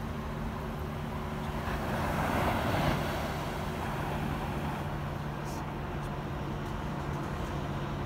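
Ocean surf washing up a sandy beach, swelling as a wave breaks about two to three seconds in, over a steady low hum.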